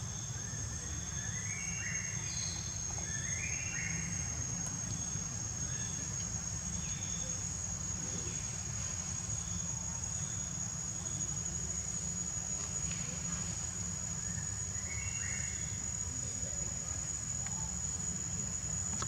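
Steady high-pitched insect drone over a low rumble, with a few short rising chirps about two seconds in and again near the end.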